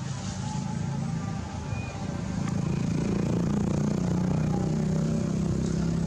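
Low, steady drone of a motor vehicle's engine, growing louder about two seconds in.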